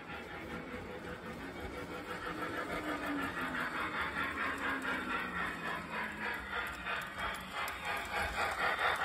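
Lionel Hogwarts Express model steam locomotive running along three-rail O-gauge track, its rolling clatter growing louder as it comes close near the end.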